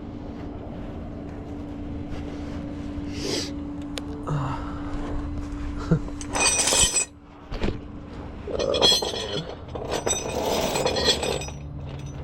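Metal tow chains and hooks clinking and rattling in several short bursts as a van is rigged for towing, over a steady hum that stops about seven seconds in.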